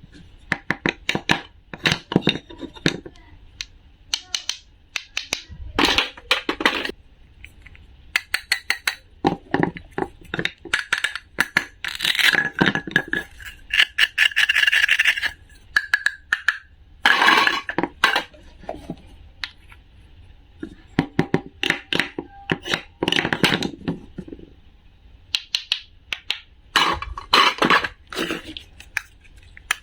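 Irregular runs of sharp clicks, clinks and scrapes from small hard objects being handled, in bursts separated by short quiet gaps.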